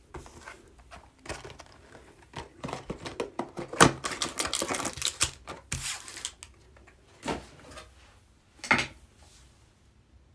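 Handling of trading-card packaging on a table: a run of irregular clicks, taps and crinkling, with a denser crackly stretch in the middle and sharp knocks about 4 and 9 seconds in.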